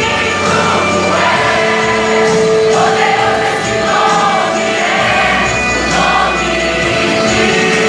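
Worship music: a group of voices singing together over instrumental accompaniment.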